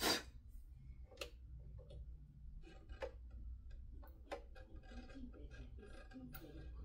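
Faint, irregular light clicks and taps with soft rustling, from handling fabric and sewing tools while a waistband is fitted to a skirt; the sharpest click comes right at the start.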